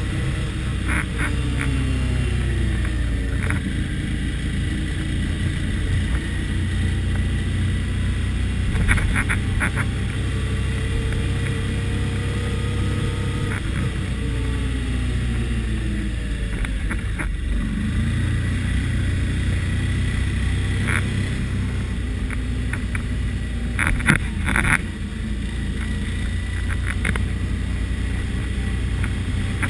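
ATV engine running steadily under way, its pitch falling twice as the machine slows, about two seconds in and again around fifteen seconds. A few sharp knocks come through, the loudest near the end.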